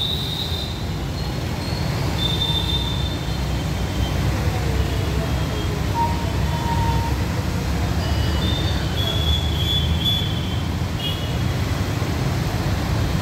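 Street traffic on a waterlogged road: a steady low rumble of auto-rickshaw, motorcycle and car engines passing through standing water, with a few short, high-pitched tones coming and going.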